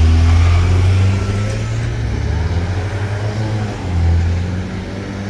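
2019 Spartan ERV Metro Star fire engine responding with its mechanical Q siren and air horn sounding over a loud, low, steady drone. The drone swells again about four seconds in.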